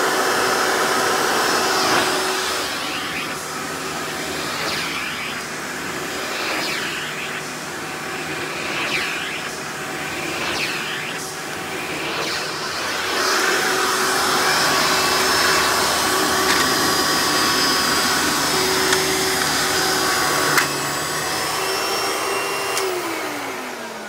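Hoover Legacy WidePath upright vacuum running, its direct-air motor drawing through the hose and upholstery tool, with the suction note shifting as the tool is worked. Near the end the motor is switched off and winds down, its pitch falling.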